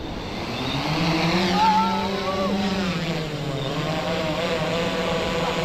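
Splashdrone 3+ quadcopter's electric rotors spinning up: a motor hum that rises in pitch and loudness over the first couple of seconds, then holds steady. A brief wavering higher sound comes at the loudest moment, about a second and a half in.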